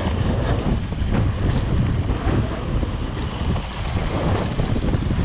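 Wind rushing over the microphone on a fast downhill mountain-bike descent, with irregular knocks and rattles from the bike on rough ground.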